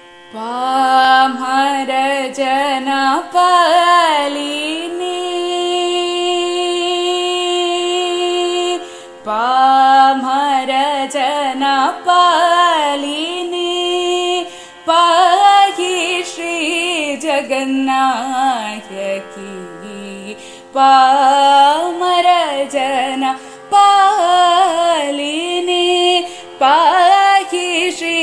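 A woman singing in Carnatic style, in long phrases with sweeping, ornamented glides and a long held note, over a steady drone.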